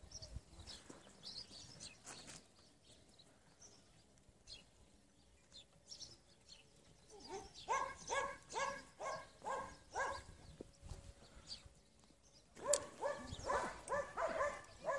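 An animal calling in two runs of short, repeated calls, about three a second: one about halfway through and a louder one near the end.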